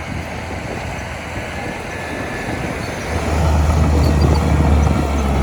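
Heavy diesel engine of earthmoving machinery running. It grows louder about three seconds in and settles into a steady low drone.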